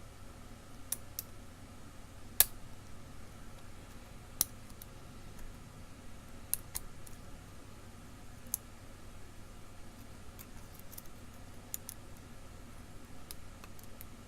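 Lock pick and tension wrench working the pins of an ERA pin-tumbler challenge lock: a scattering of sharp light clicks at irregular intervals, the loudest about two and a half seconds in.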